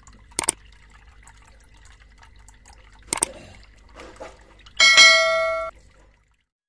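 A few sharp drips or splashes of water, then a bright bell-like ring about five seconds in that lasts just under a second and dies away.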